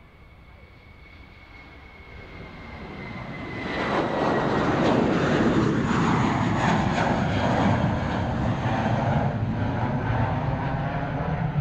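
Jet airliner engines at takeoff thrust as a jetBlue Airbus A320 climbs out on its IAE V2500 turbofans. At first there is a faint high whine, falling slightly in pitch. Then the engine noise swells to full loudness about four seconds in and stays loud and rough, with a crackle.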